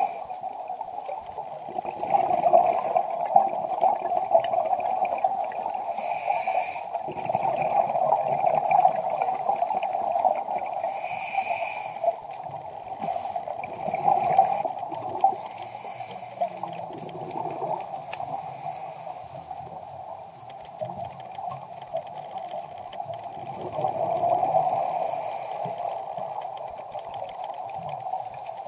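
Underwater water noise picked up by the camera: a steady gurgling rush that swells louder now and then.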